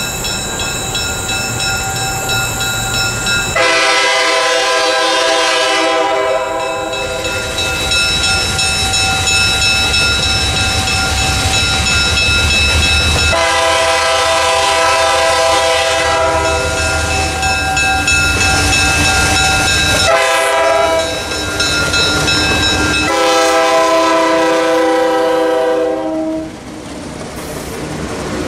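Diesel locomotive's air horn sounding long blasts, then a short blast and a final long one, the grade-crossing signal, over the low rumble of the approaching locomotive. After the horn stops near the end, the passenger cars roll past.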